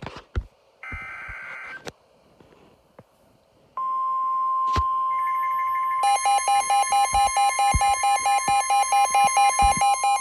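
Emergency Alert System broadcast sounds. About a second in comes a short, harsh buzz of the digital data header. Then, after a short gap, a steady high alert tone starts and is joined by a loud alarm pulsing about four times a second, announcing a flood warning.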